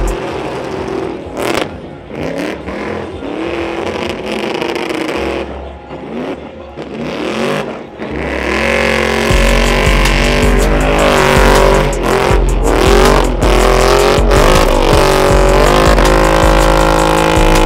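Pickup truck's engine revving hard during a burnout, its rear tire spinning. About eight seconds in it climbs to high revs and gets louder, holding there with the pitch wavering.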